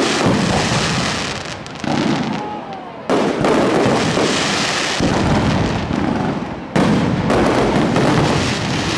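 Aerial fireworks display: shells bursting overhead, with three sudden loud bursts about three seconds apart, the second and third the sharpest, and a dense continuous rush of noise fading between them.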